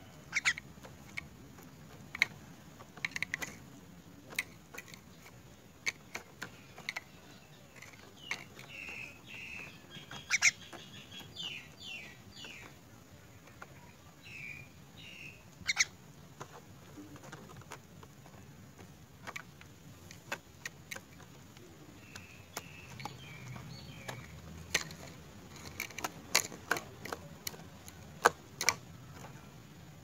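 A myna pecking at crickets, its bill striking sharply and irregularly on the netting, the insects and the plastic cup. A few short bird chirps come in between the pecks.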